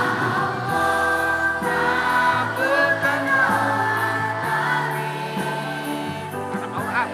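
A children's choir singing a song together in held notes that change every second or so, over a steady musical backing with low sustained notes.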